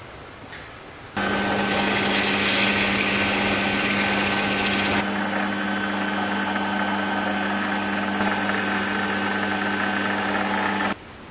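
Small metal lathe running, its spindle and motor giving a steady hum with a high whine, while an abrasive pad rubs a spinning wooden knob and adds a hiss. It starts suddenly about a second in, the hiss eases about halfway, and it stops suddenly near the end.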